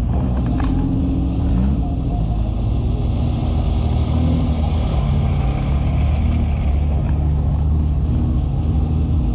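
Engines of off-road 4x4s running steadily under load as they drive through deep mud, a continuous low engine note that rises and dips a little.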